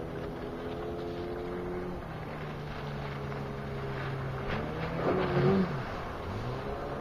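Suzuki DT 9.9 two-stroke outboard motor running at speed on a planing inflatable boat, with a steady engine note. About five seconds in, the pitch rises and falls once as the boat swings past.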